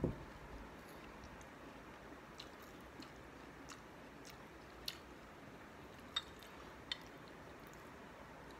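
Faint chewing of firm mango slices, with a louder bite right at the start and a few sharp crunches about five, six and seven seconds in.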